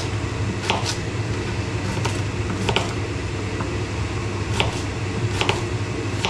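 A kitchen knife cutting celery on a cutting board: irregular sharp knocks of the blade hitting the board, sometimes two close together, over a steady low hum.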